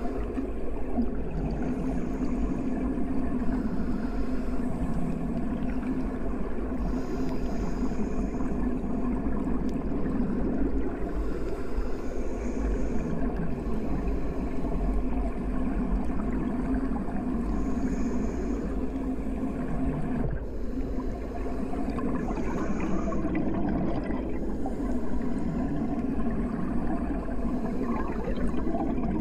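Muffled underwater ambience: a steady low rumble with gurgling water, and a faint hiss every few seconds.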